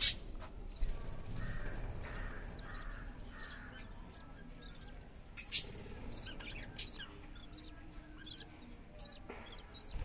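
Budgerigars in an aviary giving scattered short, sharp chirps, the loudest about five and a half seconds in, over faint background noise.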